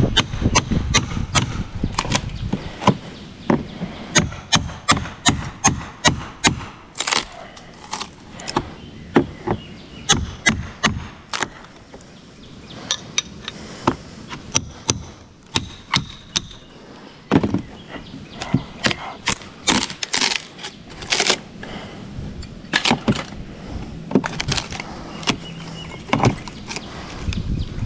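Metal pry bar striking and levering rotted cedar fascia board off the house, with wood cracking: quick sharp knocks about two a second for the first ten seconds or so, then a quieter stretch and scattered knocks and cracks later on.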